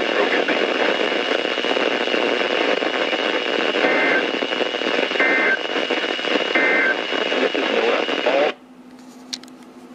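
A weather radio receiving a weak NOAA Weather Radio broadcast as loud static hiss. Three short bursts of two-pitched SAME digital data tones come about a second and a quarter apart, the length of the end-of-message code. The audio cuts off suddenly near the end, leaving a faint hum.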